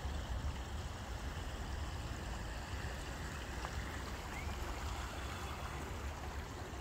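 River water rippling and lapping around a kayak in a brisk current, with wind buffeting the microphone in a steady low rumble.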